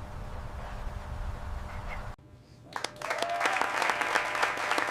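A low steady rumble that cuts off about two seconds in, then a group of people clapping and applauding.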